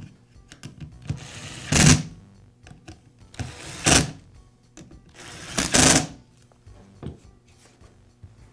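Cordless electric screwdriver with a long Torx bit whirring in three short bursts, each about a second long, as it drives the screws tight into a sander's pad and backing plate.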